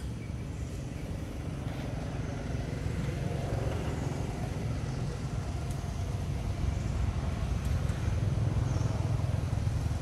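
Low rumble of a motor vehicle running nearby, growing louder over the last few seconds.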